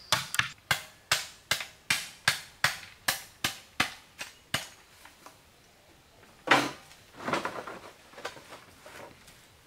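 A tool striking wood or bamboo in a steady rhythm, about two and a half blows a second, which stops after about four and a half seconds. About six and a half seconds in comes a louder noisy rustle, with a weaker one a second later.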